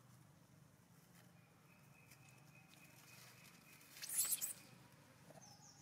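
Dry leaf litter crunching and rustling in a short burst about four seconds in, as a young monkey dashes across it.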